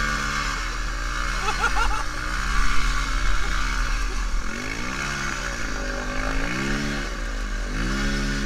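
Dirt bike engine revved up and down again and again while its rear wheel spins in mud, the bike bogged down in a muddy ditch. The revs dip and climb several times, with the widest swings in the second half.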